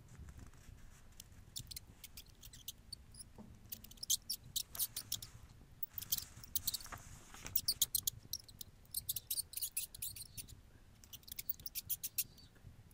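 A mouse squeaking in quick runs of short, high chirps, several bursts of them, over a faint steady low background.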